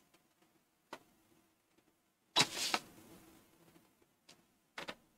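Faint handling noises in a quiet room: a few light clicks and knocks, and one brief, louder rustle about two and a half seconds in.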